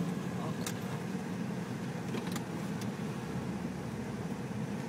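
Car engine running at low speed, heard inside the cabin, as the vehicle crawls over a rough dirt forest track, with a couple of sharp knocks or rattles from the body.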